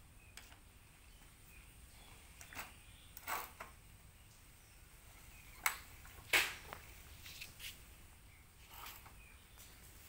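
A child's bicycle being handled and climbed onto: scattered light clicks and knocks, the two loudest a little after the middle.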